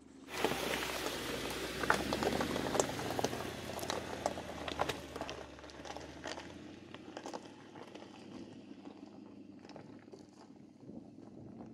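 Tyres of a Mercedes G500 crawling over loose rocks and gravel: a dense crunching with many sharp stone clicks and pops, and a low engine hum underneath. It starts suddenly less than a second in and fades over the second half as the vehicle moves away.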